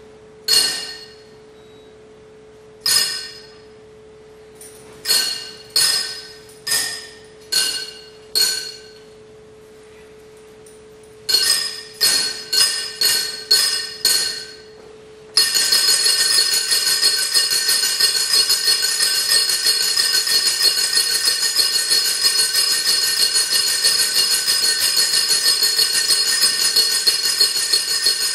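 Hand-built iron instruments: single ringing metallic strikes over a steady held tone, a second or two apart, then a quicker run of strikes. About fifteen seconds in, the strikes and the tone give way to a continuous rapid shimmering metallic jingle.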